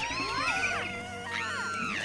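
Cartoon angry-bird squawks: a few shrill calls that arch up and down in pitch, over background music.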